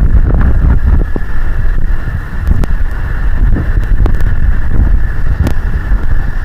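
Wind buffeting an outdoor microphone: a loud, steady low rumble with a few scattered clicks.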